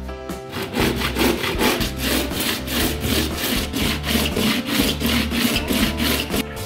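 Metal-clad battery pack rubbed back and forth on coarse sandpaper in rapid, even strokes, sanding its casing to a brushed finish.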